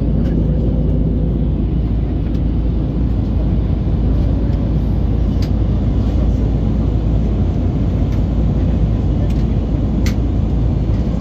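Steady low rumble of cabin noise inside an Airbus A320neo in flight, from its CFM LEAP-1A engines and the airflow over the fuselage, with a few faint short clicks, the clearest about ten seconds in.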